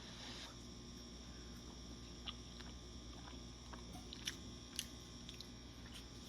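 Faint chewing: small, scattered wet clicks of a mouthful of seasoned food being tasted, over a steady low hum.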